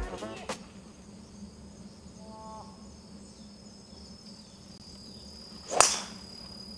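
Steady high-pitched insect drone, with one sharp crack near the end: a golf club striking the ball.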